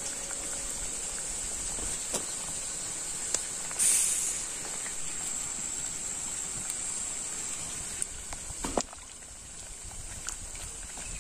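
Pot of vegetable soup simmering over an open wood fire: a steady high hiss with a few sharp crackles.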